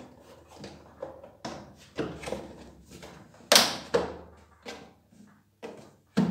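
Plastic front styling cover of a Nilfisk E 140.3 pressure washer being handled and pushed onto the housing to seat its hooks: a series of hollow plastic knocks and clicks, the loudest about three and a half seconds in.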